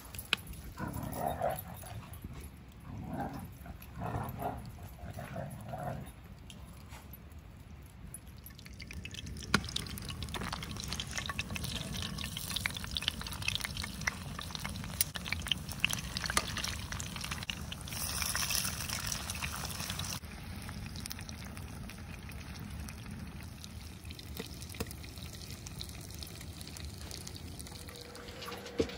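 Several short dog vocalisations, about one a second, as the dogs play in the first few seconds. Then breaded pork cutlets frying in a pan over a wood fire pit: a steady sizzle with fine crackles and pops, louder for a couple of seconds midway.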